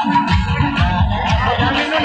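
Loud music with a fast, heavy drum beat.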